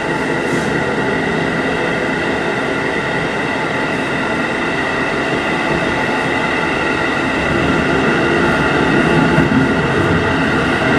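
JR Hokkaido 711 series electric multiple unit running along the line: a continuous rumble of wheels on rail with several steady tones held through it, growing a little louder about eight seconds in.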